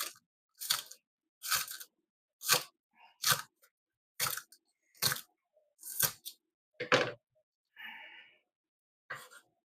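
Knife cutting through a firm raw vegetable on a board, a short crunchy stroke about once a second, with a softer rustle near the end.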